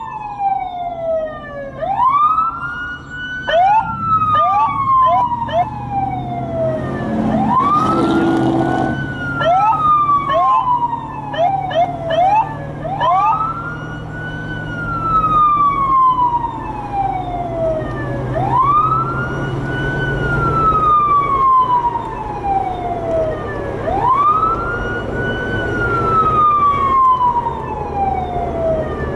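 Police siren on a Jeep sounding a wail, each cycle rising quickly and falling slowly over about five and a half seconds. A few seconds in, and again about ten seconds in, a run of quick short rising chirps is laid over it. The vehicle's engine drones low underneath.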